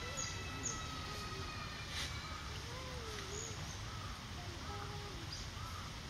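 Outdoor park ambience: a steady low rumble with faint distant voices and a few faint, short, high bird chirps.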